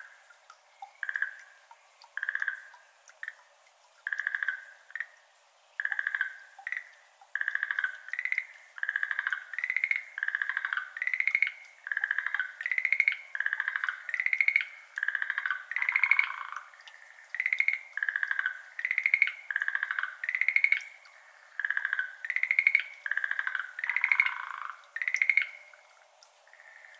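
Schlegel's green tree frogs calling: a series of short rattling, trilled calls at two slightly different pitches, a few scattered at first, then coming close together in quick succession. The calls stop shortly before the end.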